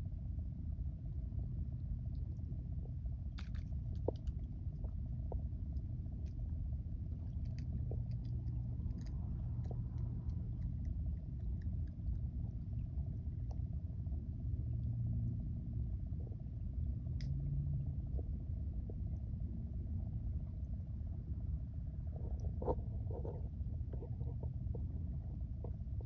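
A steady low rumble of outdoor background noise, with a few faint scattered clicks.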